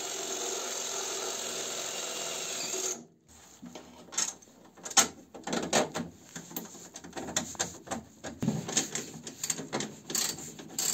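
Cordless drill with a step drill bit boring through painted sheet metal, the motor running steadily for about three seconds before stopping abruptly. After that come scattered sharp clicks and knocks of crimp connectors being pushed onto a switch and handled.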